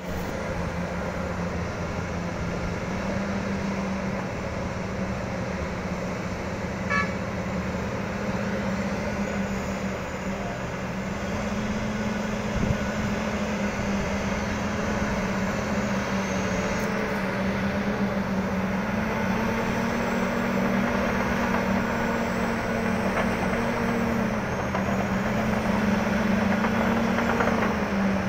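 Heavy mining machinery running together: the steady engine drone of a Hitachi EX3600 excavator, Cat 785C haul trucks and a bulldozer, with one steady engine tone that swells and dips slightly.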